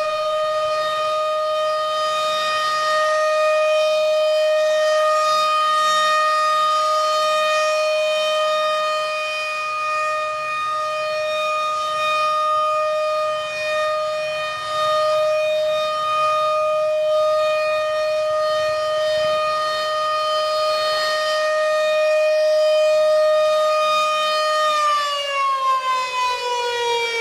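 Federal Signal Model 500 mechanical fire siren sounding one steady tone. This is the steady-tone call that summons the rural fire department. A little before the end it starts winding down, its pitch falling.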